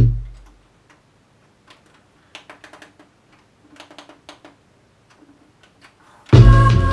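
A drum-heavy hip-hop beat cuts off, then the plastic buttons of an Akai MPC2000XL sampler click in small clusters of presses as it is programmed. The beat starts again loudly near the end.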